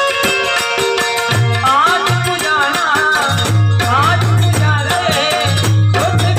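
Instrumental passage of a Gujarati folk song: held keyboard-like notes over a quick hand-drum and shaker beat. A wavering melody line enters about two seconds in, and a steady low drum pulse joins about halfway through.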